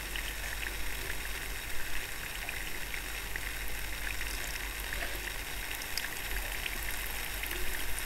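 Jalebis frying in a pan of hot oil as fresh batter is piped in: a steady sizzling hiss with scattered small crackles and pops.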